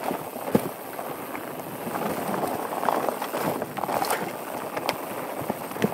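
Mountain bike descending a rocky dirt singletrack, heard from a helmet camera: tyres rolling over dirt and stones and the bike rattling, under wind noise, with sharp knocks as it hits rocks, the loudest about half a second in and another near the end.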